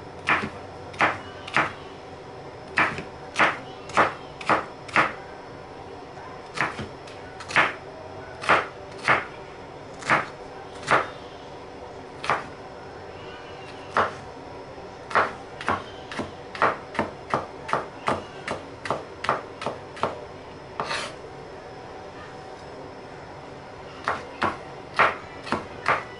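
Chef's knife dicing green bell pepper on a wooden cutting board: a run of sharp knocks as the blade strikes the board, coming in irregular rows, with a pause of a few seconds about three quarters through before the chopping starts again.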